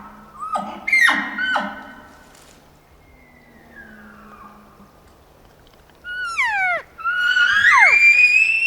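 Roosevelt elk bugling: high whistling calls that slide up and down, with a few short grunting chuckles about a second in. Near the end another bugle rises to a high held scream.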